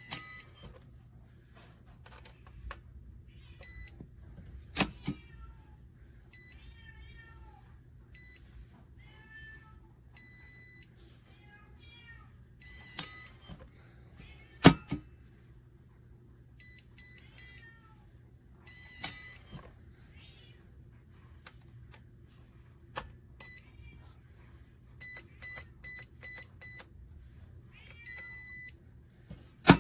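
A cat meowing again and again, mixed with short electronic beeps from the biometric gun safe's keypad and several sharp clicks or knocks, the loudest about halfway through.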